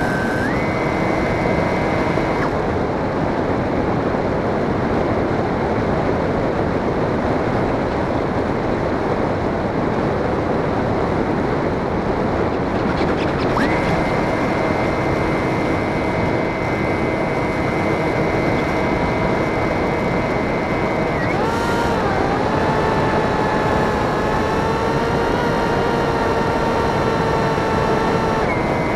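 Electric motor and propeller of a small RC plane heard in flight over a steady rush of wind, the motor whine stepping up and down in pitch several times as the throttle changes.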